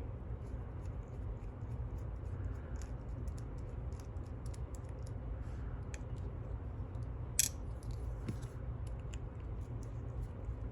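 Light, scattered clicks and taps from a lock and small tools being handled, with one sharper click about seven seconds in, over a steady low hum.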